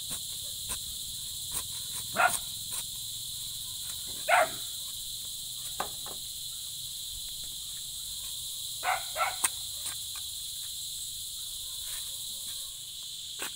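Steady high-pitched chorus of insects, with a few short, sharp louder sounds about two, four and nine seconds in.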